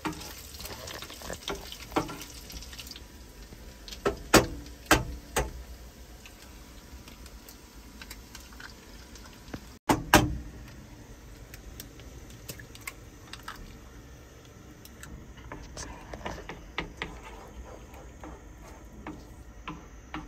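Kavurma and butter sizzling in a frying pan on a gas hob while a wooden spoon stirs and scrapes through it. A few sharp knocks, three in quick succession about four to five seconds in and a loud one about halfway through, as eggs are cracked and dropped into the hot pan.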